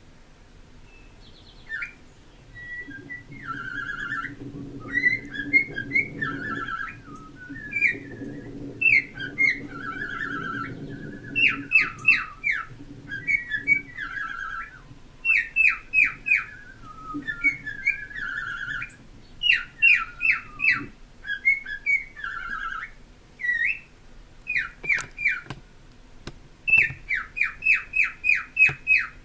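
Pet cockatiel whistling and chirping: varied whistled phrases mixed with quick runs of short, repeated downward chirps, with brief pauses between phrases.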